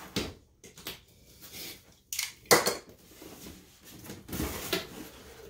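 A cardboard gift box is handled and opened on a table. The lid scrapes and knocks and the box clatters in several short bursts, loudest about two and a half seconds in.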